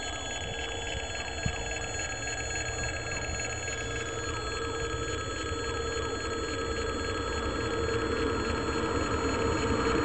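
Level-crossing warning bell ringing steadily. Under it, the noise of an approaching 2ES6 electric locomotive hauling a freight train grows louder toward the end.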